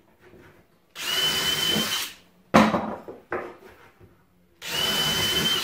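Cordless drill boring holes through small wooden blocks: two runs of about a second each, the motor giving a steady high whine, one about a second in and another near the end. Between them a sharp knock and a few small clicks as the blocks are handled.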